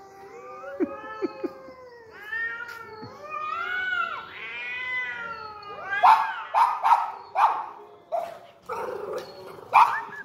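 Two cats caterwauling in a standoff: long, wavering, drawn-out yowls that rise and fall. From about six seconds in these give way to a run of short, loud, sharp calls, about two a second.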